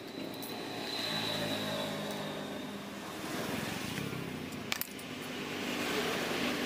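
Motor vehicle engine running steadily in the background, its pitch shifting a little in steps, with one sharp click of a small metal part about two thirds of the way through.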